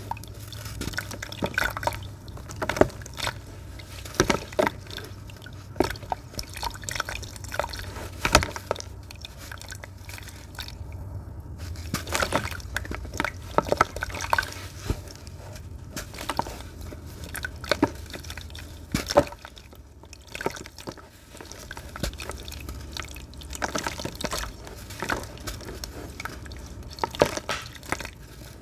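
Crumbled crunchy sand dropping into water: irregular plops, splashes and drips, sometimes in quick clusters.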